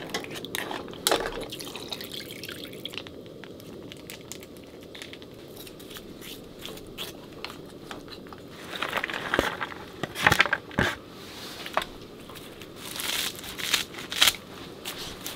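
Wooden spoon stirring seasoning into broth in a stainless steel pot: liquid sloshing and short clicks and scrapes of the spoon against the pot, busiest in the second half. Near the end, bean sprouts are dropped into the pot with a rustle.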